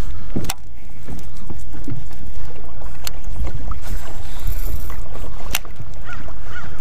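Wind buffeting the microphone with a loud, steady low rumble, broken by three sharp clicks about two and a half seconds apart. A bird chirps a couple of times near the end.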